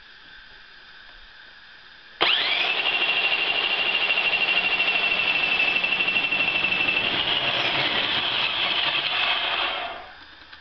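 Homemade band sawmill driven by a corded Ryobi circular saw motor: switched on about two seconds in, running loudly with a steady high whine as the band blade saws along a board, then switched off and winding down near the end.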